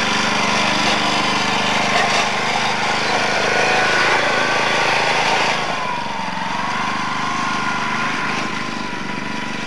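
Small petrol engine running steadily, a little quieter and briefly lower in pitch about six seconds in.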